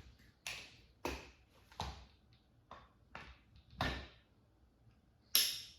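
A series of knocks and clacks of AR-15 upper and lower receivers being handled and fitted together, with a sharper clack near the end.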